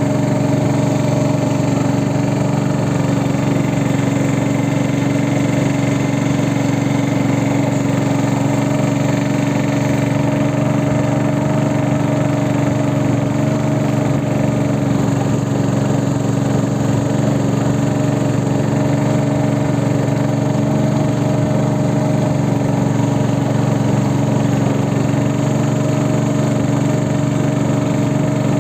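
Small boat engine running steadily at constant speed, a continuous even drone with no change in pitch.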